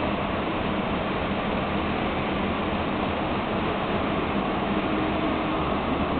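Steady running noise of an underground light-rail (U-Bahn) car moving through a tunnel, heard from inside the passenger car: wheels on rails with a faint steady hum.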